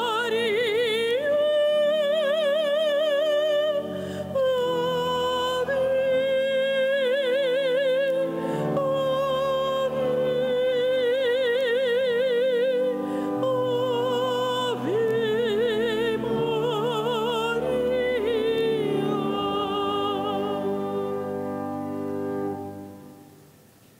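A woman singing solo in an operatic style, each held note with a wide vibrato, over a sustained instrumental accompaniment. The song ends and fades out a little before the end.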